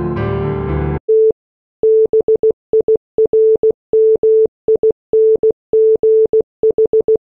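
Piano music cuts off about a second in, followed by a single steady mid-pitched tone beeping in short and long pulses, in the dot-and-dash pattern of Morse code.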